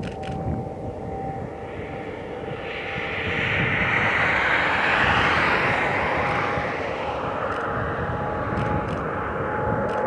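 Boeing 787-8 Dreamliner's twin jet engines at takeoff thrust during the takeoff roll: a rushing roar that swells from about three seconds in and stays loud, with a thin steady whine running under it.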